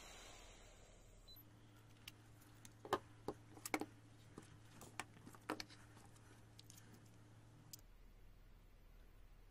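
Handling noise: a scattered run of sharp clicks and taps over a faint steady hum, with the loudest taps close together about three to four seconds in.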